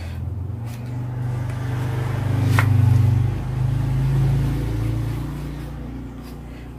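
A motor vehicle's engine, a low hum that swells to its loudest about three seconds in and then fades as the vehicle passes. A single sharp click is heard just before the peak.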